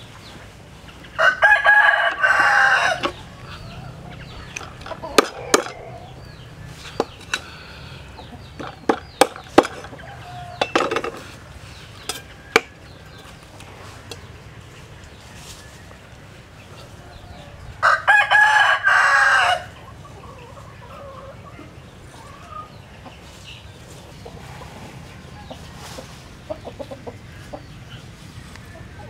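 A rooster crows twice, once near the start and again past the middle, each crow lasting under two seconds. Between the crows come a handful of sharp knocks of a knife striking a wooden chopping block.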